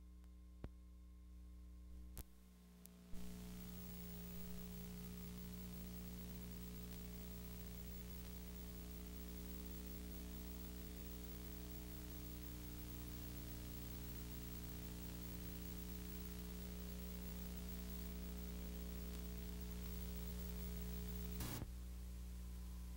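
Steady electrical hum with tape hiss from an analog video transfer. A few sharp clicks sound in the first three seconds, and the hiss comes up at about three seconds in; another click comes near the end.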